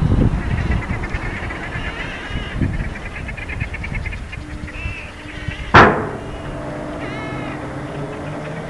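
Gulls calling repeatedly over a low rumble. About six seconds in there is a single sharp, loud bang, followed by a steady low hum.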